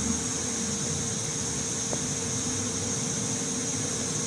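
Steady background hiss with a faint steady hum, and a faint click about two seconds in.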